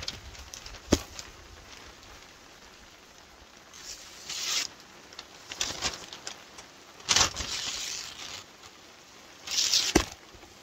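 Two sharp knocks, one about a second in and one near the end, with three short bursts of rustling noise between them.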